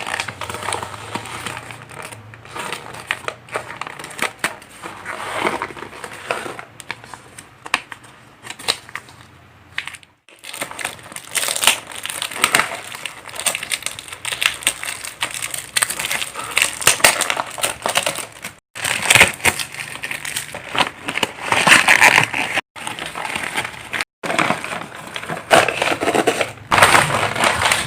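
Packaging crinkling and rustling as it is handled and opened, with many small clicks and crackles; the sound cuts off abruptly several times.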